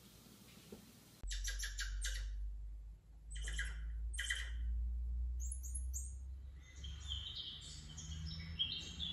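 Video for cats playing from a TV: clusters of high squeaks and chirps while mice run across the screen, then a stretch of rapid bird chirps and tweets from about two-thirds of the way in, over a low steady hum.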